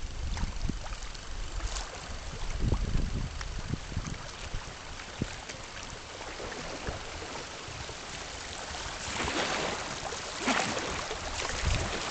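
River water rippling and gurgling over a shallow riffle close to the boat, with gusts of low wind rumble on the microphone early on. The splashing grows louder in brief bursts near the end.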